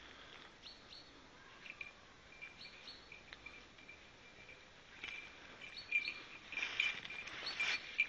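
Hunting bell worn by a Saint-Usuge spaniel, jingling irregularly as the dog works through cover. It is faint and intermittent at first and grows louder and busier from about five seconds in as the dog comes closer.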